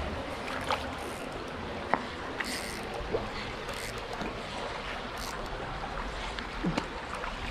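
Shallow water trickling steadily along a concrete drainage canal, with a few sharp clicks and brief rustles of handling close by.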